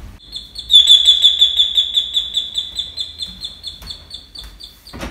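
Electronic doorbell ringing: a high, rapidly pulsing warble held for about four and a half seconds.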